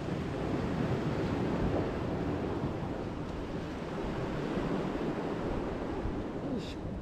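Sea surf washing and breaking against concrete tetrapods and rocks, a steady rushing noise, with some wind on the microphone.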